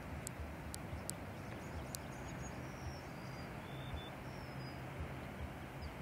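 Steady rushing of a distant tall waterfall, with a low uneven rumble beneath. A few faint high bird chirps and thin ticks come in over the first few seconds.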